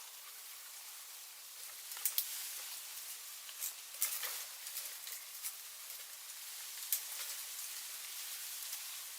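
Sticks and leaves rustling and crackling over a steady hiss, with a few sharp snaps about two, four and seven seconds in.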